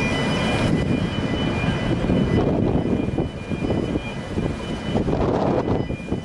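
Loud, steady rumbling drone of the Blue Star 2 ferry's machinery running at the quay, with a faint high whine that drops out about two seconds in.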